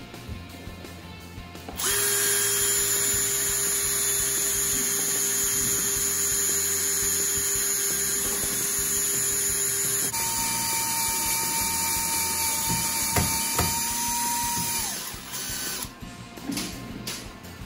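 iBELL BM18-60 20V brushless drill driving a self-tapping screw straight into 3 mm thick metal box pipe. The motor starts about two seconds in and runs steadily for about eight seconds, then shifts to a higher pitch for about five seconds before stopping near the end.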